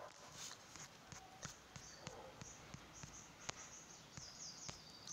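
Near silence: faint background noise with a few scattered soft clicks and faint high-pitched chirps near the end.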